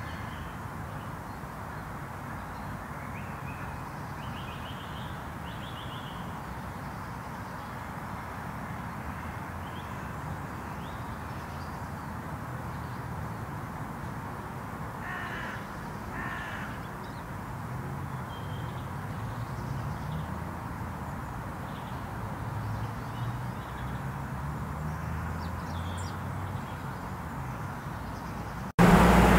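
Outdoor ambience: a steady background hum with a few bird calls, including two harsh calls close together about halfway through. Near the end it cuts abruptly to much louder traffic noise.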